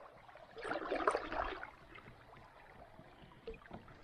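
Shallow river water swishing and gurgling around a drifting kayak's hull, with a louder swish about a second in.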